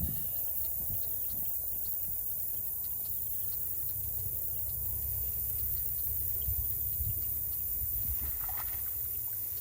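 A steady low rumble of wind buffeting the microphone outdoors, with faint scattered ticks above it.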